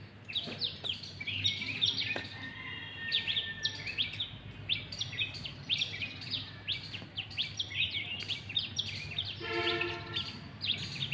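Small birds chirping throughout, with many short, quick downward-sliding calls several times a second, over a low steady background hum.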